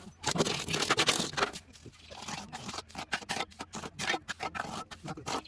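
Irregular scraping, scratching and snipping noises from hand work with tools and materials, in quick uneven strokes.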